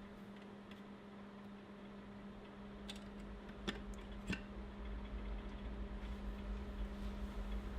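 Quiet room tone: a steady low hum, with a few faint clicks about three to four and a half seconds in and a low rumble that builds in the second half.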